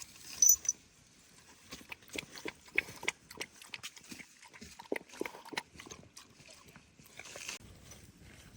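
Irregular knocks and clacks, sometimes several a second, with a sharp, louder click and a brief high squeak about half a second in.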